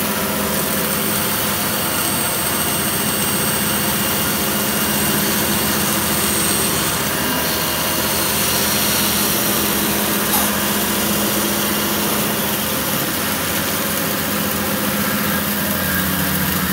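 Bandsaw running steadily with its wide blade cutting straight into a block of wood as the second cut of a lap-joint notch, then the blade running free as the block is backed out.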